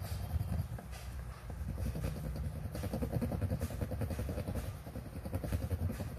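A steady low rumble, with faint irregular scratching strokes from a wooden toothpick rubbing cleaning paste over a metal coin.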